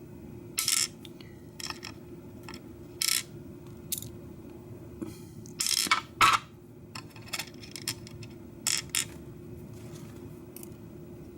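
Small metal lock parts, the pins and springs of a pin-tumbler mortise cylinder being gutted, clicking and tapping irregularly against each other and a hard surface, about a dozen sharp clicks with a loud pair a little past the middle, over a steady low hum.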